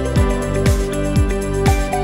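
Background music with a steady beat, about two beats a second, under sustained chords.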